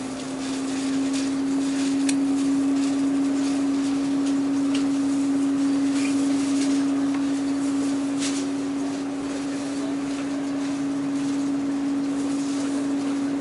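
Diesel railcar's engine under power as the train pulls away from the station: a steady drone heard from inside the carriage, rising slightly in pitch near the end, with a few sharp clicks from the running gear.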